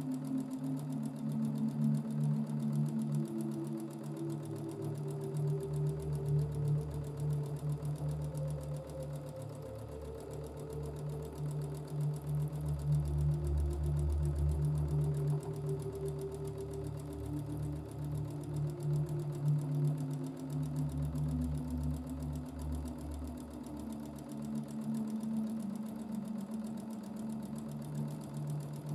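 Domestic sewing machine stitching free-motion quilting, its motor and needle running steadily and shifting speed up and down in stretches.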